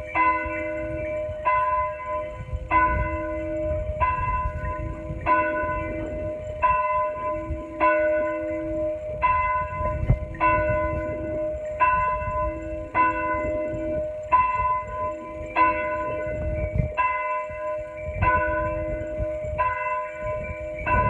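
Church bell tolling steadily, one stroke about every 1.3 seconds, each stroke ringing on into the next.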